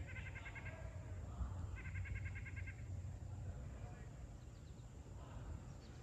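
Two short, rapid, pulsed animal trills about a second apart, at roughly a dozen notes a second, over a steady low outdoor rumble.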